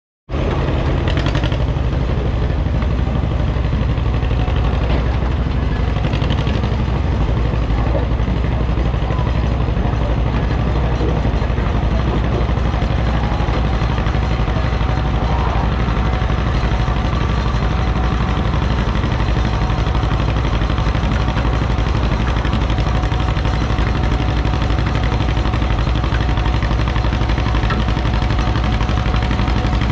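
Antique pulling tractor's engine idling steadily while hooked to the weight-transfer sled, with no revving.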